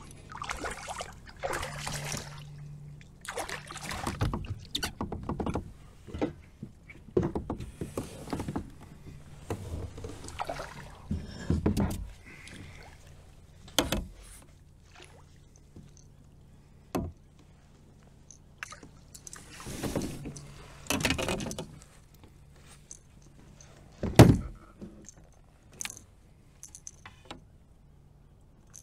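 A largemouth bass being fought and landed beside a fishing kayak: a string of irregular splashes, rustles and handling knocks against the kayak, the loudest a single sharp knock a few seconds before the end.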